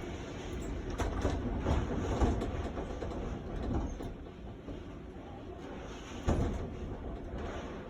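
Typhoon wind gusting in a low, surging rumble that rises and falls, with a few sharp knocks, the loudest about six seconds in.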